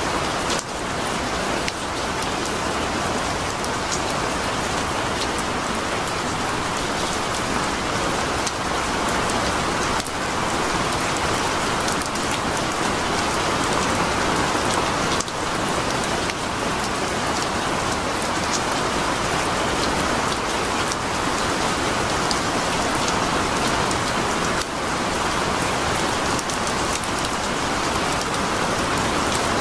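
Steady rain falling, a continuous even hiss with scattered drop ticks.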